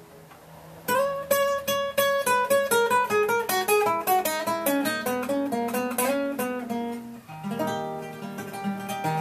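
Solo nylon-string classical guitar, fingerpicked. The opening notes ring out and fade, then about a second in a fast run of single plucked notes steps down in pitch for several seconds, and near the end the playing settles into ringing sustained notes and chords.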